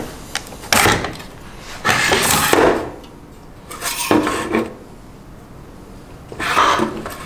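Plastic-and-metal fan tray module of a Cisco Nexus 9364C switch unlatched and slid out of its bay by hand, then handled on the table: four short bursts of sliding, scraping and knocking.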